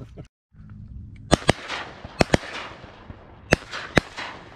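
Shotgun shots during a duck hunt: six sharp reports over about three seconds, the first four in two quick pairs, each followed by a short echo.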